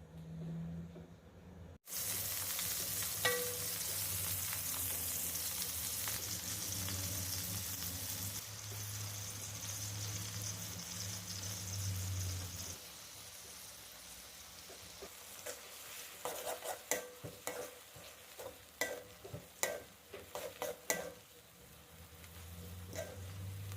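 Food sizzling as it fries in a pan, starting abruptly about two seconds in, over a low steady hum. After the sizzle dies down, a spatula clinks and scrapes against the pan in a quick run of knocks as the food is stirred.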